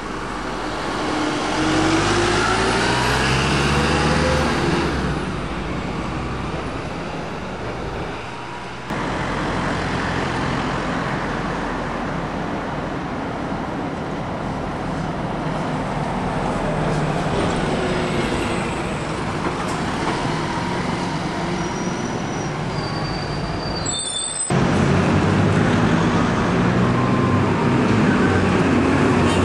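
Diesel bus engines and city traffic. A double-decker bus accelerates away with its engine rising in pitch, then there is steady street traffic with buses passing. After a short break near the end, a single-decker bus's engine runs close by.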